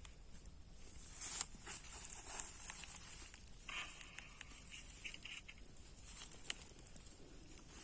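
Faint rustling, scraping and crinkling handling noises as an owl is held in the hand, with a brief rasping stretch about four seconds in.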